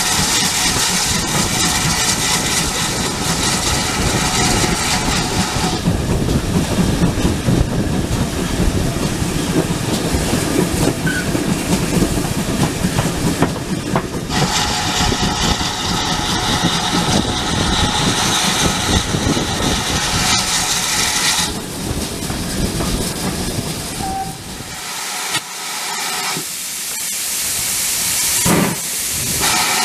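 Steam-hauled train on the move, heard from a carriage window behind the locomotive: a continuous mix of wheels on rail and steam hiss. The sound changes abruptly several times, and the low rumble drops away in the last few seconds.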